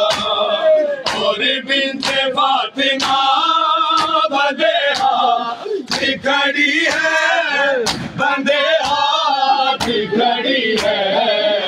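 Male voices chanting an Urdu noha (mourning lament) in chorus, over a steady beat of sharp slaps, roughly one or two a second, from the group's matam chest-beating.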